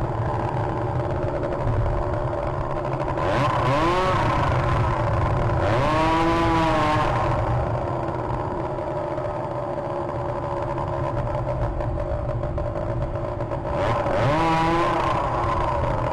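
Motor engines passing by four times, each rising and then falling in pitch with a rush of noise, over a steady mechanical hum.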